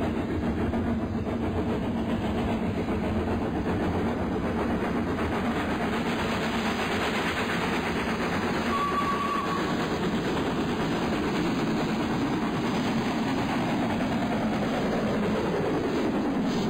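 Steam locomotive and its coaches running past on the line, a steady rumble with rail clatter. A brief high tone sounds about nine seconds in, and the pitch of the rumble falls near the end as the train goes by.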